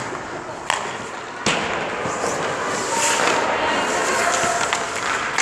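Ice hockey shot on a goalie: a sharp crack of the stick on the puck, a second hard knock about a second later, then skates and goalie pads scraping across the ice.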